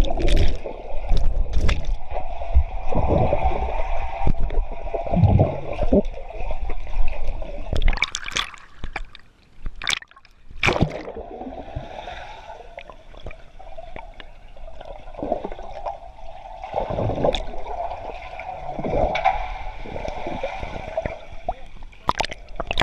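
Swimming-pool water heard underwater, muffled: gurgling and bubbling as people plunge in beside the microphone, with a few sharp splash knocks about eight to eleven seconds in.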